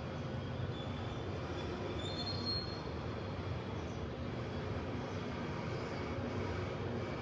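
Steady low rumble of outdoor ambience, with a few brief high-pitched squeaks about one to two and a half seconds in.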